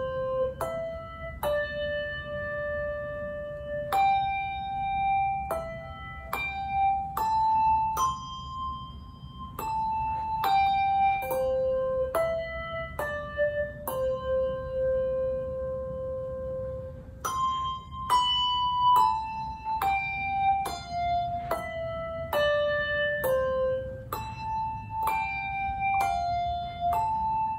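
Solo handbell melody: brass handbells rung one after another by a single ringer, each note struck clearly and left to ring. The tune moves at about one to two notes a second, with one longer held note about halfway through.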